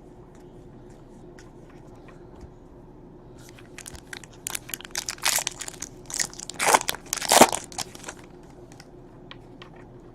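Crinkling and tearing of a trading-card pack's wrapper as it is ripped open, in a cluster of crackles lasting about four seconds, loudest near the end, with light handling clicks before and after.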